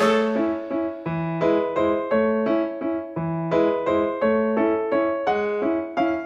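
Background music: a light piano tune played in an even, steady rhythm, with a simple bass line under the melody.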